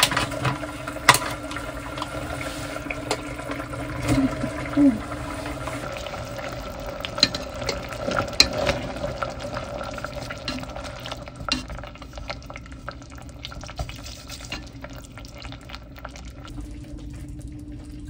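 Tofu noodles being stirred with wooden chopsticks in a pot of simmering gochujang stew: wet stirring with scattered light knocks against the pot, over a steady hum.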